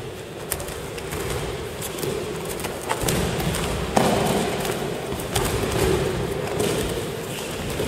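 Irregular thuds of bodies landing on judo-style tatami mats as several people roll and break-fall in turn. The loudest landing comes about four seconds in, in an echoing sports hall.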